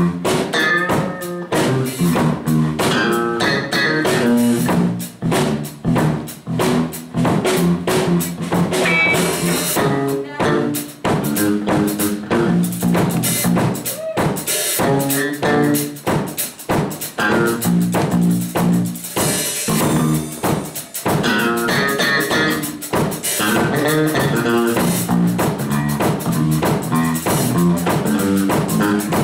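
Live band music: an electric bass guitar playing a busy line of notes over a steady drum kit beat.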